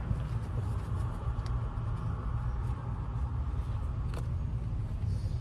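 Steady low background rumble with two light clicks, one about a second and a half in and one about four seconds in.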